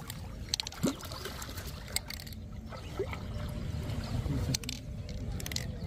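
Hooked catla fish thrashing at the surface in shallow water, splashing several times as it is drawn in on the line, over a steady low rumble.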